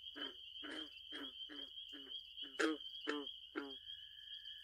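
Night-time animal chorus: a run of short, repeated calls, about two a second, over a steady high-pitched drone. The repeated calls stop near the end as a second, lower steady tone begins.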